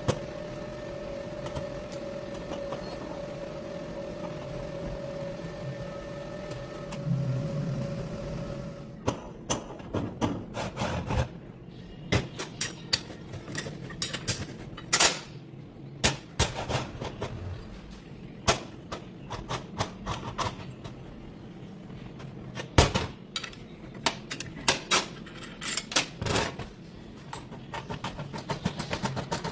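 A steady machine hum for about the first nine seconds, then a long run of irregular sharp knocks and clanks, a few of them much louder than the rest.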